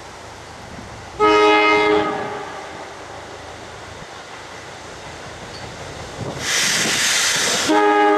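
SEPTA Silverliner electric train's air horn sounding a short chord blast about a second in, then a longer blast starting near the end. Between them comes a loud hiss lasting about a second.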